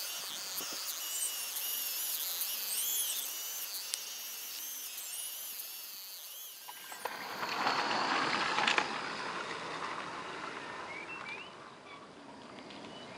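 Motors of a radio-controlled Menzi Muck excavator model whining, the pitch rising and falling over and over as the arm works. About seven seconds in, a louder rough rustling noise takes over.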